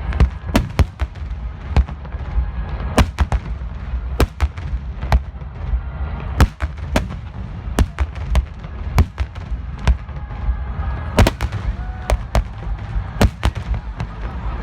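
Fireworks bursting in rapid, irregular succession, several sharp bangs a second over a continuous low rumble.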